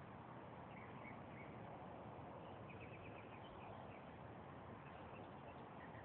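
Faint songbirds chirping over a steady outdoor hiss: a few single chirps about a second in, then a quick run of about five notes near the middle.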